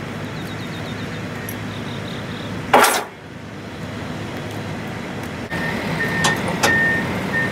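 A vehicle engine runs steadily, and a short, loud rush of noise comes about three seconds in. From about five and a half seconds a backup alarm beeps in an even rhythm, with two sharp clicks, as equipment is moved around the trailer.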